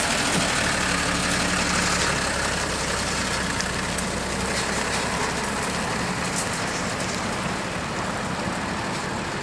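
Flatbed tow truck's engine running as the truck drives off, a steady low drone that grows slowly fainter.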